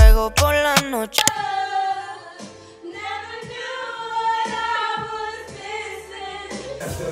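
Background music with a heavy bass cuts out about a second in, followed by a woman singing, held, wavering notes, with a faint steady beat behind her.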